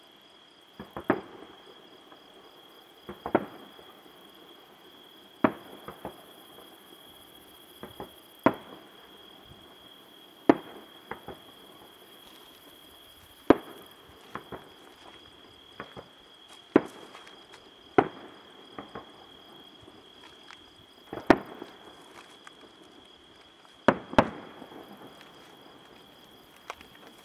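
Aerial firework shells bursting one at a time, a sharp bang about every two to three seconds with smaller pops in between.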